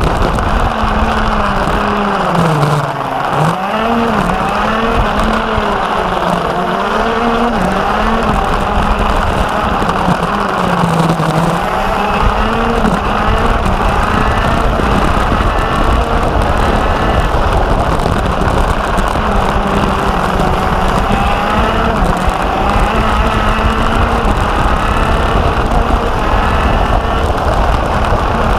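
Racing go-kart engine at full race pace, heard from onboard: it holds a high, steady note on the straights and drops in pitch as the kart slows for corners, about three seconds in and again around eleven seconds, then revs back up.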